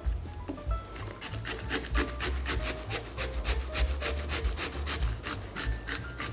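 Zucchini being grated on a handheld stainless-steel grater: quick rasping strokes, about four or five a second, starting about a second in and stopping near the end.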